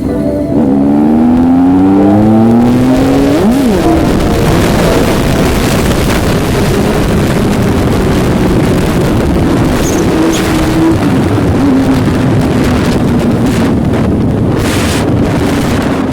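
Motorcycle engines accelerating, rising in pitch over the first few seconds, with a quick drop in pitch about three and a half seconds in as one passes, then running at a steadier speed.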